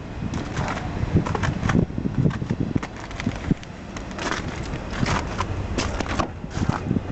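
A 2012 Kia Forte's four-cylinder engine running, with many irregular knocks and crackles over it.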